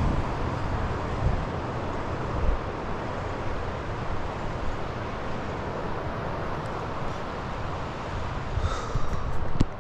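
Steady rush of wind with gusts buffeting the microphone, low and uneven, during a snowstorm on the lakeshore. A few short clicks about nine seconds in.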